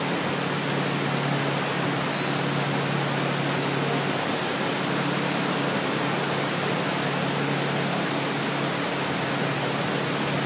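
Steady rushing noise with a low hum under it, unchanging throughout; the ball's hits on the wall do not stand out above it.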